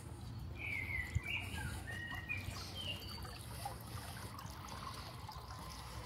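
Water trickling from a stone fountain into its trough, with several short bird chirps in the first few seconds.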